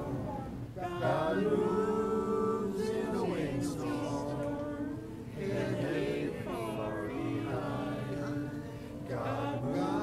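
A choir singing slow, sustained chords, each held note moving to the next every second or two.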